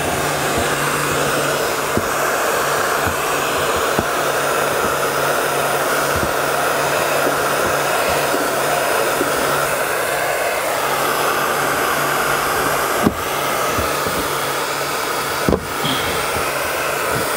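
Hand-held blow dryer running steadily on high, blowing hot air onto a plastic car bumper to soften a creased dent. It makes a steady rushing air noise over a low motor hum, with two short knocks near the end.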